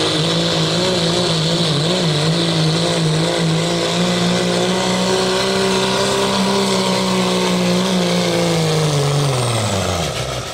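Dodge Ram 2500's Cummins turbo-diesel inline-six held at full throttle under load as the truck drags a weight-transfer pulling sled, its note steady with a slight waver. About nine seconds in the revs fall away as the pull ends and the truck stops.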